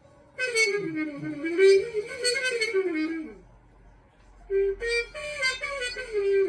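A muted trumpet-family brass horn playing a slow melody in two phrases: the first with sliding, bending notes, then a pause a little past three seconds in, then a second phrase of shorter stepped notes.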